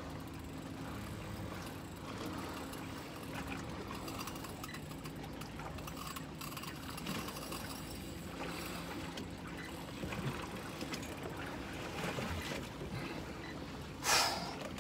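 Water sloshing and trickling against the hull of a drifting boat over a low, steady engine hum, with a brief louder rush near the end.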